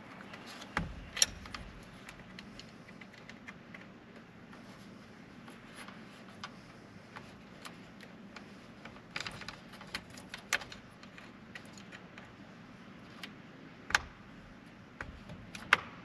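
Scattered small clicks and rattles of a screwdriver prying at the plastic connector locking tabs on the back of a steering-wheel airbag module as it is handled. There is a sharp click about a second in, a cluster of clicks about nine to ten seconds in, and a few more near the end.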